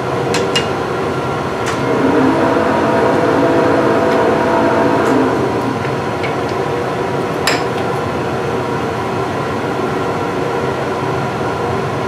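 Monarch 10EE metal lathe running with a steady hum that swells a little from about two to five seconds in. Over it come a few sharp metal clicks as the tool holder on the toolpost is handled.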